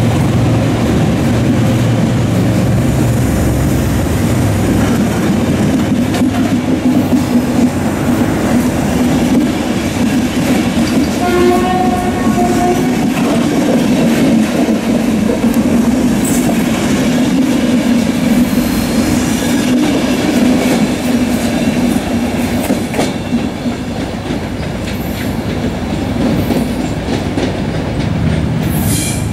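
A locomotive-hauled passenger train rolls steadily past a platform. A little before the middle, a train horn sounds once for about a second and a half.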